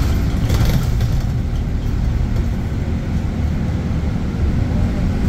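Scania K280UB bus running under way, with steady low engine and road noise. There is a short burst of hiss about half a second in.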